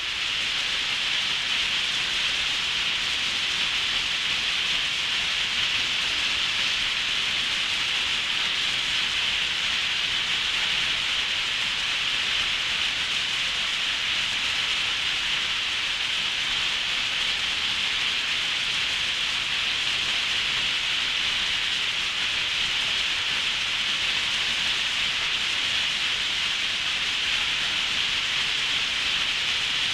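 Steady, heavy rain: an even, unbroken hiss of rainfall with no distinct drops or thunder.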